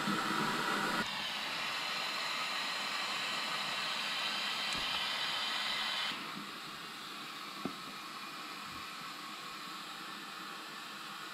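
Air-powered vacuum brake bleeder running with a steady hiss as it draws brake fluid out through the bleeder hose. The hiss drops in level about a second in and again about six seconds in.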